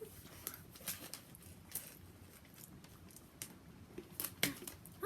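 Faint, scattered clicks and taps, about half a dozen at irregular intervals, with a short rising vocal sound at the very end.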